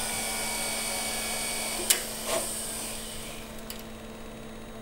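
Reel-to-reel tape machine running: a steady mechanical whir with hiss, with a sharp click about two seconds in, a softer knock just after it and another click at the end.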